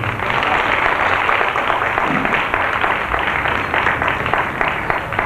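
Audience applauding: many people clapping in a dense, steady round.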